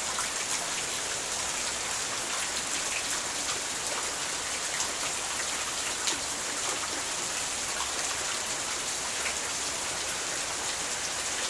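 Steady rain falling, an even hiss with many separate drops ticking on a hard surface.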